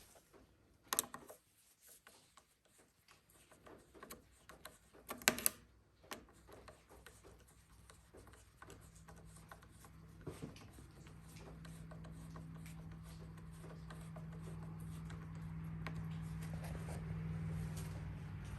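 Hand work on motorcycle handlebar controls: small clicks, taps and rubbing as levers and grips are fitted, with two sharper knocks about one and five seconds in. From about halfway, a steady low hum comes in and slowly grows louder.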